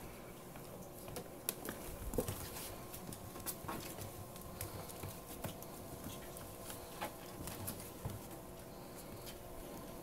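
Irregular light clicks and taps of a ferret's claws scampering on a hardwood floor as it plays, over a faint steady hum.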